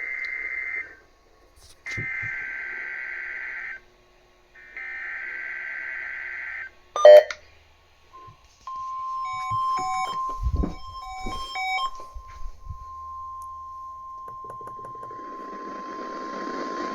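NOAA Weather Radio SAME (Specific Area Message Encoding) header for a Required Weekly Test: three bursts of warbling data tones, each about two seconds long, heard over a radio receiver. A sharp, very loud crackle follows, then the steady 1050 Hz weather alert tone, held for about nine seconds with a few short beeps over its start.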